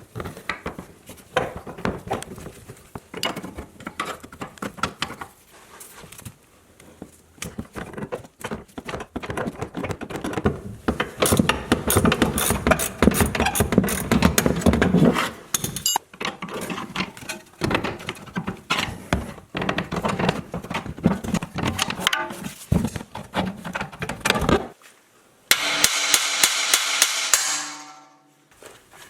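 Tool work on a car's front suspension: irregular metal clicks, knocks and clatter from wrenches and parts. Near the end a motorised tool runs for about two seconds, then winds down.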